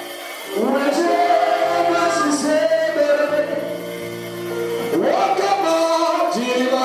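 Gospel worship music: voices singing sustained, gliding phrases over held instrumental chords and low bass notes.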